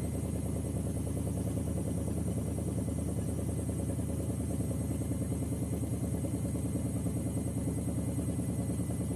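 Washing machine running hard, its drum knocking in a rapid, even rhythm as the whole machine shakes and jumps on the floor.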